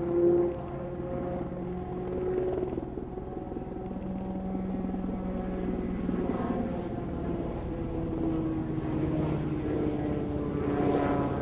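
Piasecki X-49A compound helicopter, a modified SH-60F Seahawk with lifting wings and a ducted propeller in place of the tail rotor, flying by in a steep banked turn. Its rotor and engine noise is steady, with several humming tones that drift in pitch and fall slowly lower in the second half.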